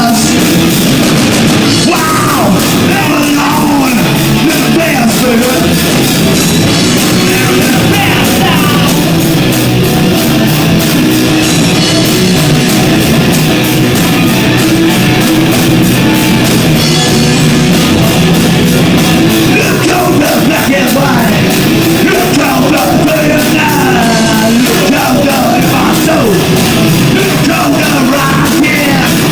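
Live rock band playing a loud song, recorded on an overdriven phone microphone, so the sound is heavily distorted.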